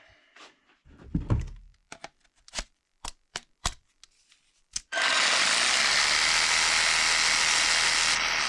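A few sharp clicks and knocks as the Parkside PSTKA 12 A1 12 V cordless jigsaw is handled, then the jigsaw is switched on about five seconds in and runs steadily at a constant speed.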